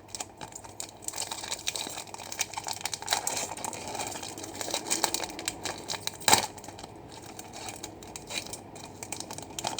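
Crinkly wrapping on a trading card box or pack being handled and pulled open, a steady crackle of small crinkles. A sharper click comes about six seconds in.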